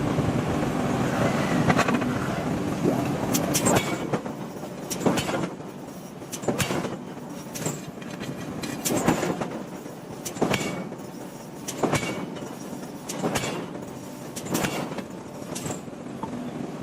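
Hammer blows on a red-hot iron block being drawn out, about one every second and a half, over a steady background rumble that is loudest in the first few seconds.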